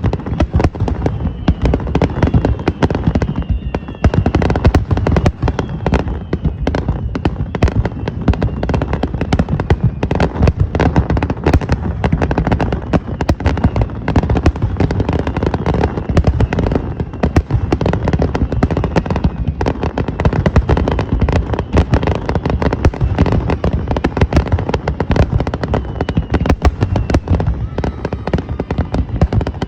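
Fireworks going off in a dense, continuous barrage of rapid bangs and crackles, many per second with no pause.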